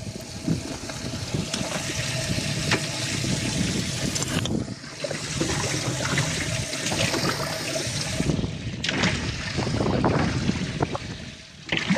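Water sloshing and trickling in a bass boat's livewell, with a faint steady hum under it.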